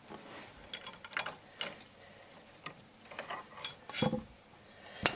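Light metallic clicks and clinks of hand tools on a Honda D17A crankshaft pulley bolt: the socket, bar and pulley-holding tool being worked off the freshly loosened bolt. About eight irregular clicks, one a little heavier about four seconds in.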